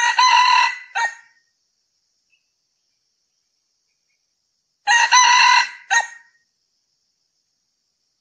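Male red junglefowl crowing twice, about five seconds apart. Each crow is a short, clipped cock-a-doodle phrase ending in a brief separate final note.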